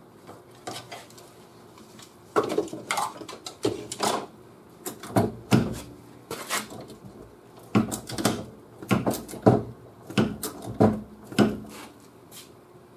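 Irregular metallic clanks and knocks, a dozen or more over about ten seconds, as steel hand tools and parts are handled and struck against the car's rear body panels. They die away about a second before the end.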